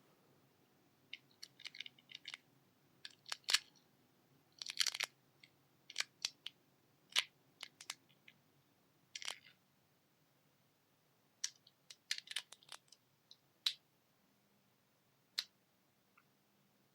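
Irregular sharp clicks and small snaps of hard plastic parts being handled and worked at close range, some coming in quick clusters of three or four.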